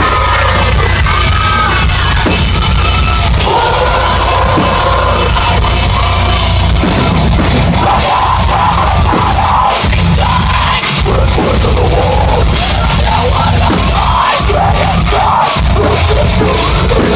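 Live heavy metal band playing loud, with pounding drums, distorted guitars and yelled vocals.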